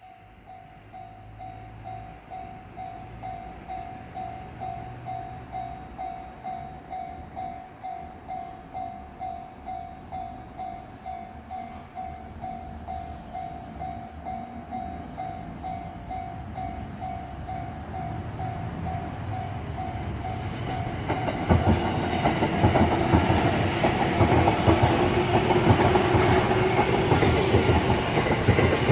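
Japanese level-crossing warning bell ringing, a steady repeating electronic ding. About two-thirds of the way in, an E353-series electric limited express train passes through the crossing, loud and close, its wheels clattering over the rail joints.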